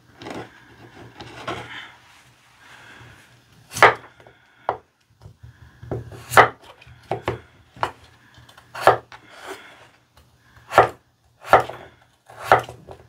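Kitchen knife slicing a peeled raw potato on a wooden cutting board: the blade knocks sharply on the board about a dozen times at an uneven pace, roughly once a second, starting about four seconds in after softer handling sounds.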